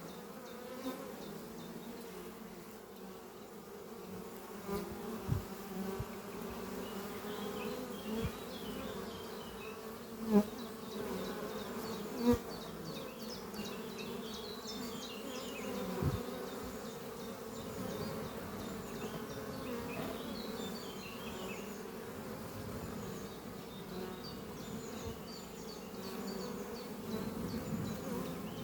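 Honeybees flying at a hive entrance: a steady buzz of many bees, with single bees buzzing loudly past close by a few times.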